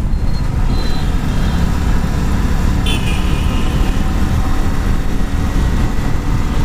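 Yamaha R15 V3 single-cylinder motorcycle riding steadily along a city street, its engine and road noise running continuously. A brief high-pitched chirp sounds about three seconds in.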